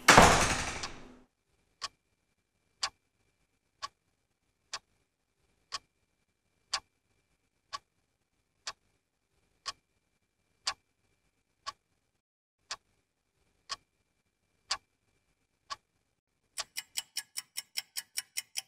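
A door shuts at the start, then a clock-ticking sound effect ticks once a second against near silence, marking time passing. Near the end the ticking speeds up to about five or six ticks a second.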